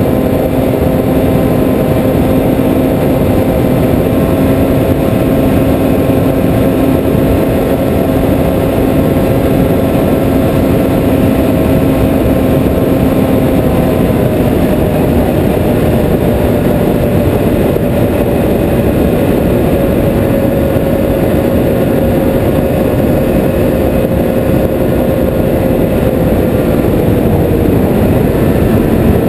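Snowmobile engine running at a steady cruising speed under a heavy rush of wind on the microphone. The engine's pitch shifts about halfway through and falls slightly near the end.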